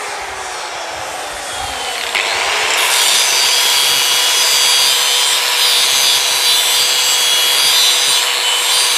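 Handheld angle grinder running, its motor pitch dipping and then climbing again about two seconds in. From about three seconds in, its disc grinds a bar of used car spring steel with a loud, steady hiss.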